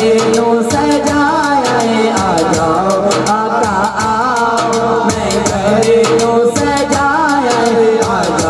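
Naat sung live by a male singer through a microphone and PA, a long, wavering, ornamented vocal line over instrumental accompaniment with a steady percussion beat.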